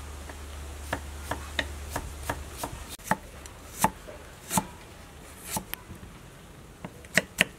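A large kitchen knife slicing ginger on a thick wooden chopping block. It makes separate knocks, about one or two a second, then a quicker run of chops near the end.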